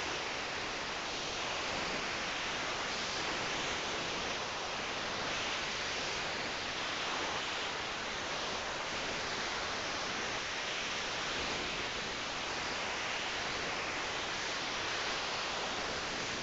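Steady, even hiss of background noise, with faint slow swells every couple of seconds and no distinct snore standing out.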